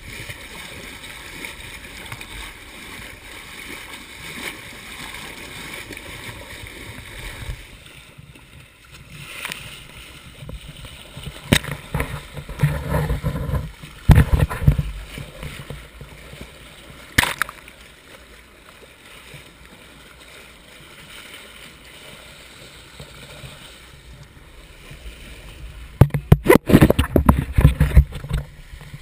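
Water rushing and splashing along a small sailboat's hull, with wind on the microphone. A few sharp knocks come about halfway through, and near the end a burst of loud knocks and rubbing as the camera is handled.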